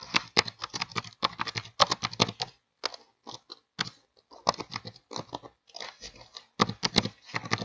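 Computer keyboard typing: irregular runs of quick keystroke clicks with short pauses between them.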